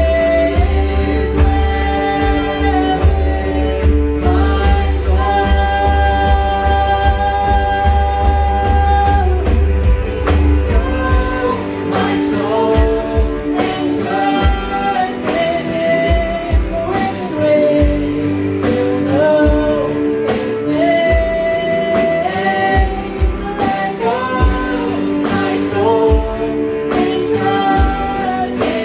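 Worship song with singing over band accompaniment. A deep, steady bass carries the first part, then drops out about eleven seconds in, leaving a beat of low thumps under the held notes.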